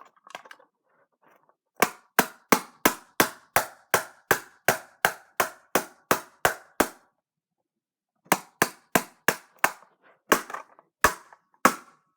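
Repeated hard strikes on the plastic shell of a Razer DeathAdder gaming mouse, a sharp knock about three times a second in two runs with a short pause between. The blows fail to break or dent the shell.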